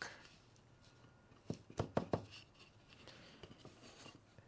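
Taped redwood staves knocking lightly against each other as the assembly is rolled into shape: a quick run of about four knocks a second and a half in, then faint rubbing.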